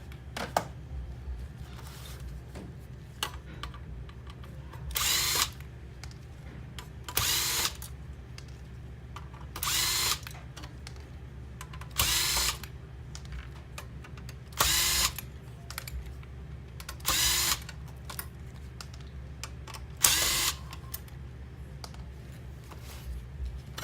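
Cordless power screwdriver backing out Phillips screws in seven short runs, each about half a second long and spaced a couple of seconds apart. Small clicks fall between the runs.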